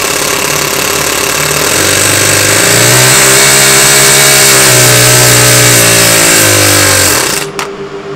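Toyan FS-S100 single-cylinder four-stroke model engine running loaded by a wooden Prony brake clamp, its pitch rising a few seconds in, then sagging as the clamp is tightened. About seven seconds in it cuts out suddenly with a click as it stalls under the brake, leaving only a quiet pulsing hum.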